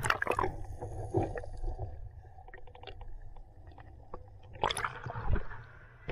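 Shallow sea water sloshing and splashing, with louder splashes at the start, about a second in and near five seconds in, over a steady low rumble.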